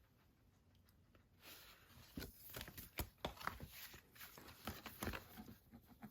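Faint paper rustling and crackling as a folded poster is handled, starting about a second and a half in, in irregular small clicks.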